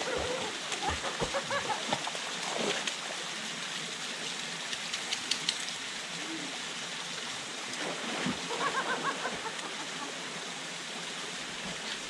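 A thin waterfall pouring steadily into a rock pool, with brief splashes as people and a dog wade through the water.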